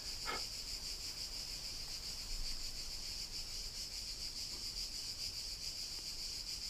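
Steady high-pitched chirring of insects, like crickets, in the background.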